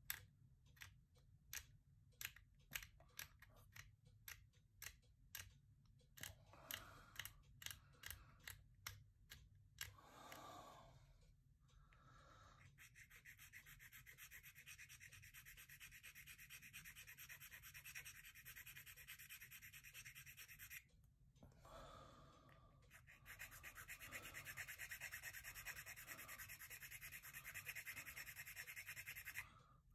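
A hobby razor knife scraping a cemented polystyrene model part in short strokes, about two a second, then a sanding stick rubbed rapidly back and forth over the plastic to smooth away the glued seam. The sanding breaks off briefly about two-thirds of the way through, then starts again.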